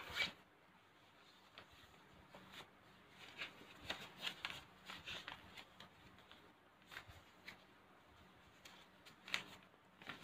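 A sheet of paper being folded and its creases pressed down by hand: faint rustles and crinkles in short, irregular spurts. They are busiest through the middle, with a sharper crinkle right at the start and another about a second before the end.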